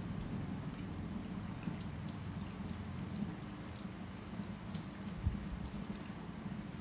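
Water from a handheld shower sprayer running steadily onto wet hair and splashing into a shampoo basin during a hair rinse, with a few light scattered ticks.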